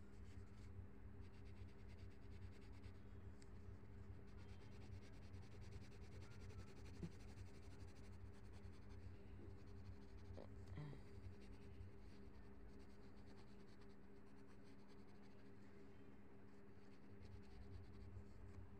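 Faint scratching of a pencil shading on paper, over a steady low hum.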